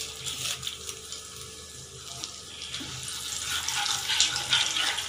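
Whole spices, cumin seeds and a dried red chilli, sizzling and crackling in hot mustard oil in a wok as a phoron tempering, getting louder about three seconds in while they are stirred with a wooden spatula.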